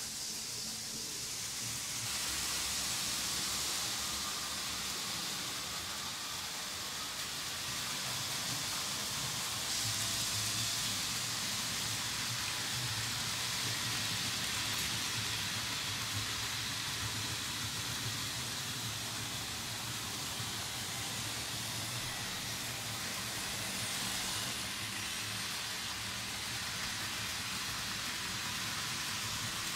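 Märklin HO-scale model trains rolling over metal M-Track, a steady hiss-like rattle of wheels on rails with a faint motor hum underneath. It grows louder about two seconds in and again around ten seconds in as a train passes close.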